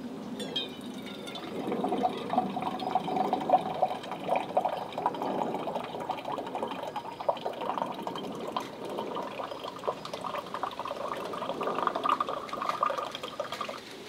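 Water from a Dometic Go battery-powered faucet streaming into a stainless steel tumbler, filling it. The pitch of the filling rises toward the end, and the flow stops at the very end.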